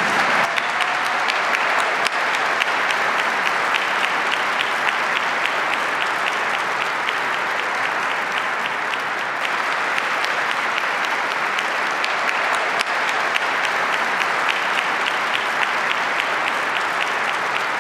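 A large audience applauding, a steady, unbroken round of clapping that holds at one level throughout.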